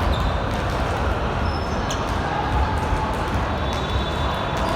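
Basketball game play: a ball bouncing on the court and a few short, high sneaker squeaks over steady background noise.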